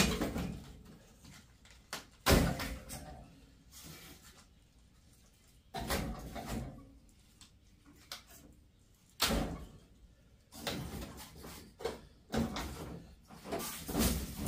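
Heavy scrap air-conditioner coil pieces being set down and stacked, a series of separate thumps and clanks a few seconds apart, the loudest about two seconds in.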